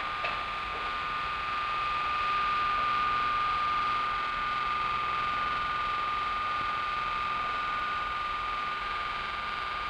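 Rotating electrical machine on an engineering-lab panel running at speed with a steady high-pitched whine that holds one pitch, over a constant hiss.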